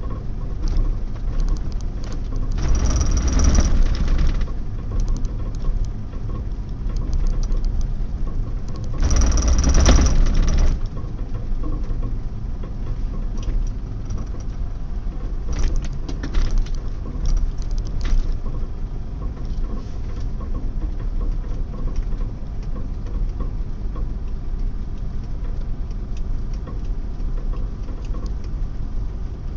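Triton pickup's engine running, with the abnormal noise the owner set out to record. It swells louder twice for about two seconds, near the start and about ten seconds in, then briefly a few more times.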